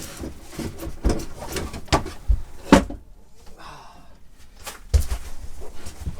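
Irregular knocks, clunks and clicks of camper-van kitchen units and fittings being pulled and worked loose, with a short scrape around the middle.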